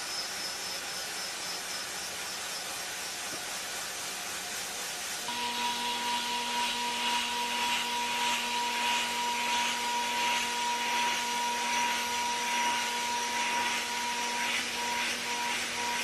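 CNC milling machine running: a steady hiss of spindle and cutting noise, with a steady whine and louder cutting noise starting about five seconds in, the whine turning on and off in short pulses near the end.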